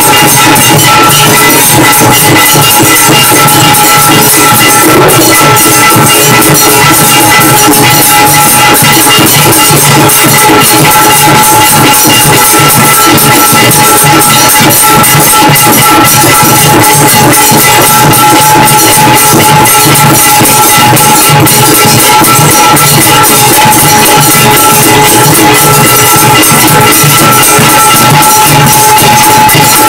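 Temple bells ringing without pause over rapid drum and cymbal beats: the loud, continuous metallic clanging of a Hindu aarti.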